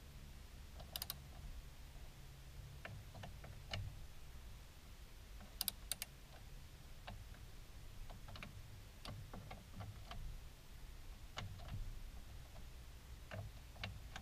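Socket ratchet clicking in short, irregular runs as bolts are worked on top of the engine, with a few sharper clicks, the loudest a pair about six seconds in.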